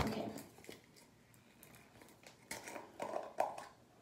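Old slime being handled and pressed into a mixing bowl: soft sticky squelches and scattered small clicks, with a sharp click right at the start and a denser stretch of squishing near the end.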